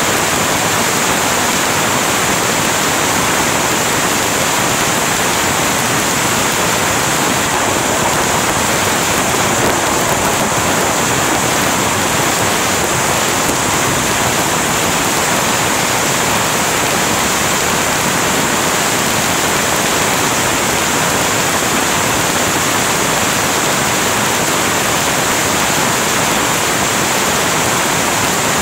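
Heavy rain pouring steadily, a dense, even hiss.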